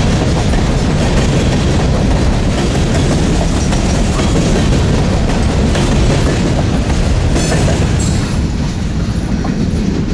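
Freight train of covered hopper grain cars rolling past close by, with a steady rumble and clatter of wheels on the rails. The sound eases off a little near the end as the last car goes by.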